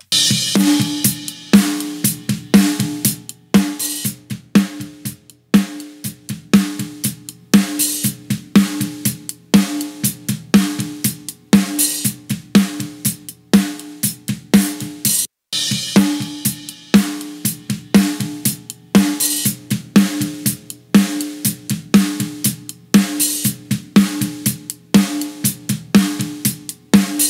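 Multitrack drum-kit recording playing back: snare hits with a ringing pitched tone over kick, hi-hat and cymbal crashes. The snare is a top mic blended with a hard-compressed punch channel (Slate FG-116 compressor, long attack and very short release, set for punch). The groove stops briefly about halfway through and starts again from the top.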